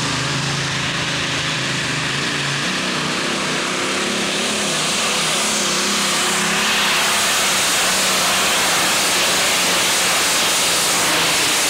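Modified pulling tractor's big V engine running flat out under load as it drags the weight-transfer sled, a loud steady roar that grows a little louder about halfway through.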